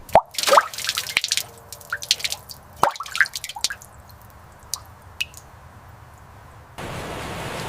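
Water dripping: a run of sharp plinking drops over the first few seconds, thinning out, then a steady rushing noise that starts suddenly near the end.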